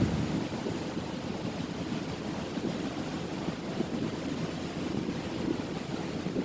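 A tugboat underway: a steady low rumble with water wash and wind buffeting the microphone, and a brief louder gust right at the start.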